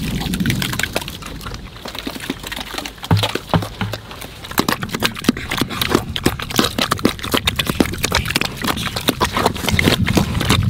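Pigs eating soaked feed from a pan: rapid wet slurping, smacking and chomping, thickening into a dense run of quick smacks from about four seconds in, with a few short low sounds just before.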